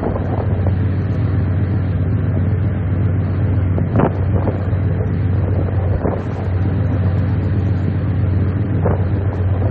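Steady low engine hum with wind noise on the microphone, and a few brief gusts or knocks about 4, 6 and 9 seconds in.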